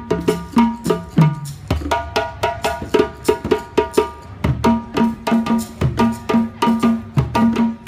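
Live ensemble of hand drums struck with bare hands, playing a fast, steady, interlocking rhythm of several strokes a second, with ringing higher tones over deep bass strokes.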